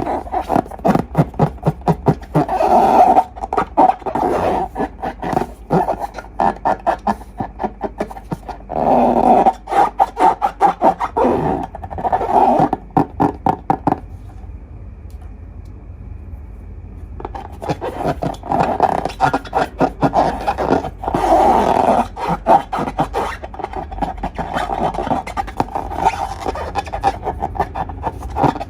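Slime being squished and worked with rubber balloons: runs of rapid sticky clicks and squeaks, with a pause of a few seconds about halfway through.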